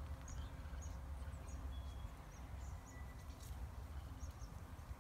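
Outdoor pond-side ambience: a steady low rumble of wind on the microphone, with scattered short, high bird chirps.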